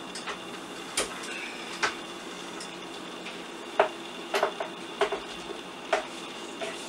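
Kitchen utensils and a plastic bowl knocking and clinking against a stainless steel stand-mixer bowl as coconut flakes are tipped in, about seven short knocks spread unevenly, over a steady low hum.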